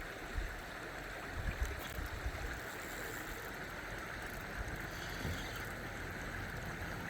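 River water flowing steadily, an even rushing hiss, with wind buffeting the microphone in low, uneven rumbles.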